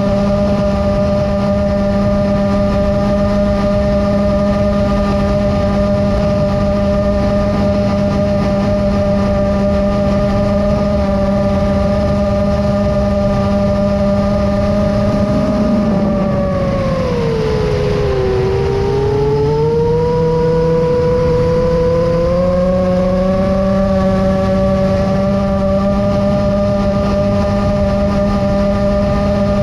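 Chimera 7 FPV quadcopter's brushless motors and 7-inch propellers, a steady multi-tone whine at cruising throttle with wind rush over the onboard camera. About halfway through, the pitch drops as the throttle comes down, then climbs back to cruise over a few seconds.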